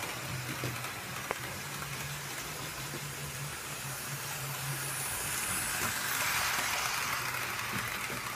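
Model railway train running on its track: a low motor hum that comes and goes under a steady hiss.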